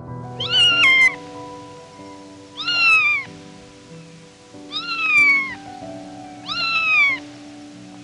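A cat meowing four times, roughly every two seconds, each call falling in pitch, over soft sustained background music.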